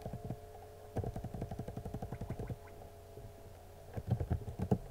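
Computer keyboard keys clicking, a quick run of presses about a second in and a few heavier taps near the end, over a steady low hum.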